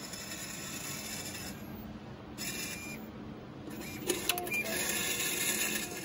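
Trenitalia self-service ticket machine printing and dispensing a paper train ticket. The printer runs in three stretches, with a few sharp clicks about four seconds in.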